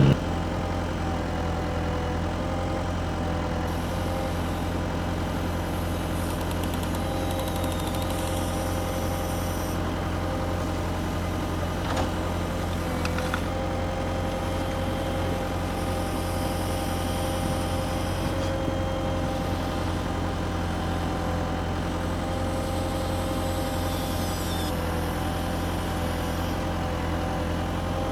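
Radio-controlled toy excavator running: a steady engine-like idling drone with a thin whine over it, and a few light clicks about twelve to thirteen seconds in.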